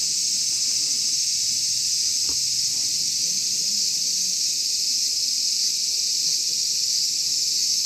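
A steady, high-pitched chorus of insects buzzing without a break.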